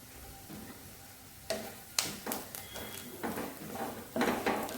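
Bread sticks being moved about in a kadai: a run of irregular scraping and knocking sounds of spatula and bread against the pan, starting about a second and a half in.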